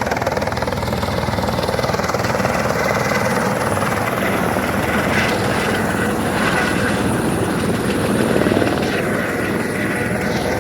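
Helicopter running close by: a loud, steady rotor noise with a rapid, even chop.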